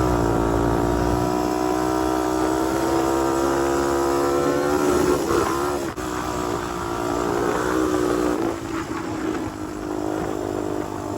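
Honda TRX250X quad's single-cylinder four-stroke engine running at steady high revs under way. The note wavers about halfway through, drops back near the end and then holds again. There is wind buffeting on the microphone at the start.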